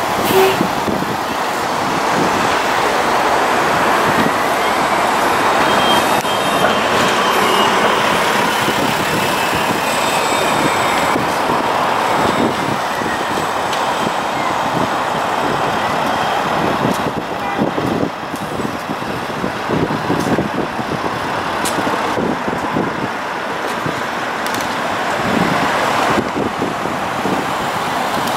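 New Flyer XDE60 articulated diesel-electric hybrid bus pulling away and running in street traffic, with steady engine and road noise. A faint high whine rises and then falls over the first ten seconds or so.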